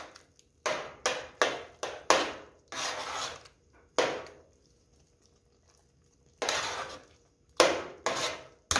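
Metal spoon stirring and scraping a thick, mushy jiló and cassava-flour tutu against the sides and bottom of an aluminium pot: a run of short scraping strokes, with a pause of about two seconds in the middle.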